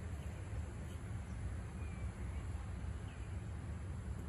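Outdoor ambience: a steady low rumble with a few faint, short bird chirps.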